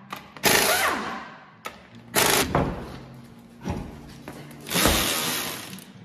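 Impact wrench spinning lug nuts off a truck wheel: four short bursts, each winding down after the trigger is released.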